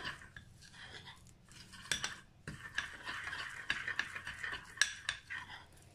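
A spoon stirring olive oil and ground spices into a thick paste in a small amber glass bowl, scraping the bottom and sides and clinking irregularly against the glass.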